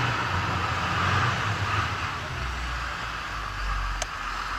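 Steady machinery hum and hiss of a construction site, with a deeper low rumble coming in about halfway through and a single sharp click near the end.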